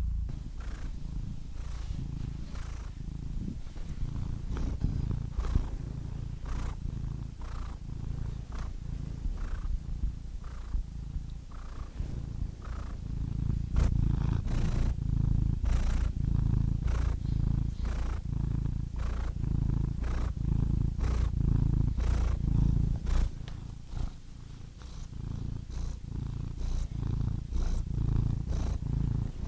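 Domestic cat purring close up, a low rumble that swells and fades in an even rhythm with its breathing, about every three-quarters of a second, briefly quieter near the 24-second mark.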